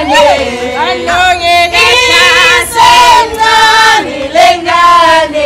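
A group of women singing together, loud and continuous, with long held notes.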